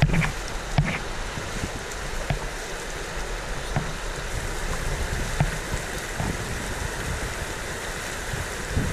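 Shallow river riffle rushing steadily over rocks, with a few light knocks and splashes as a canoe is waded and lined through the shallows.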